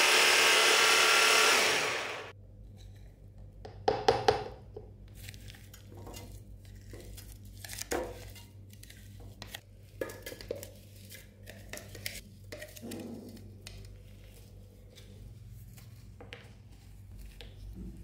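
An electric blender runs loudly for about two seconds, then winds down and stops. Scattered clinks and knocks of kitchen utensils and dishes being handled follow.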